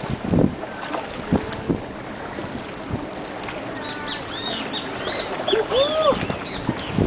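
Kayak paddles dipping and splashing in shallow sea water over a steady wash of water and wind. In the second half a run of short, high, arching calls is heard.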